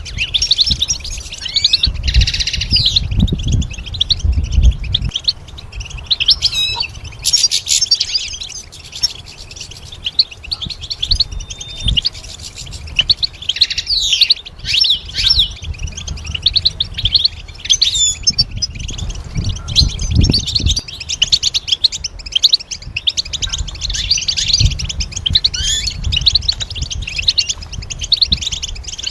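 European goldfinch singing: a long, fast twittering song of quick trills and chirps, slackening briefly partway through. Low rumbles sit underneath now and then.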